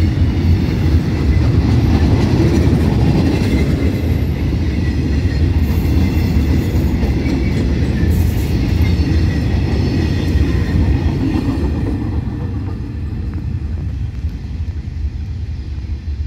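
Container flatcars of a freight train rolling past on the rails: a steady low rumble of wheels on track with some clickety-clack. It grows fainter near the end as the last wagon passes and moves away.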